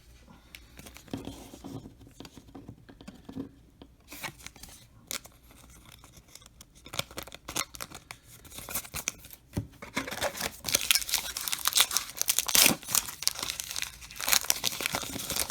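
A baseball card pack's wrapper being torn open and crinkled, with soft card handling first; the crinkling and tearing is loudest over the last five seconds.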